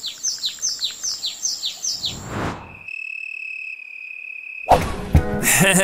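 A run of about eight quick bird-like chirps, each falling in pitch, about three a second, followed by a steady high whistle-like tone lasting about two seconds. Near the end a burst of noise breaks in and music returns.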